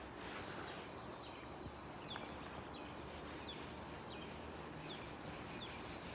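Short high chirps from a calling animal, repeating every second or so from about two seconds in, over a steady faint outdoor hiss.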